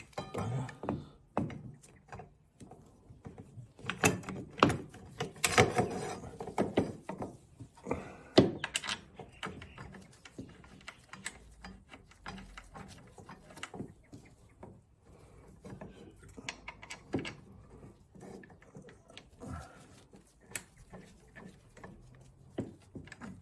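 Scattered clicks and knocks of metal parts and tools being handled while fitting brake pads to a motorcycle brake caliper. A busier run of knocks comes about four to nine seconds in, then lighter, sparser clicks.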